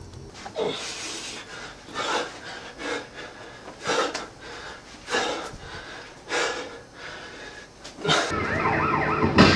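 Short, sharp exhales, roughly one a second, from a man throwing punches while shadowboxing. Near the end a steadier, louder sound with a wavering tone comes in.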